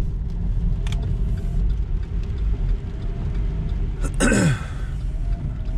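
Steady low engine and road rumble of a Chevrolet car driving, heard from inside the cabin. About four seconds in, a brief louder sound with a falling pitch cuts across it.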